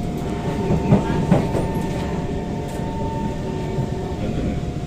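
SMRT C151 train running on the track: a steady rumble with a constant whine, and two sharp wheel knocks over rail joints about a second in.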